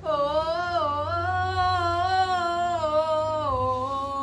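A woman's voice holding one long sung note, wavering gently in pitch and sinking lower near the end.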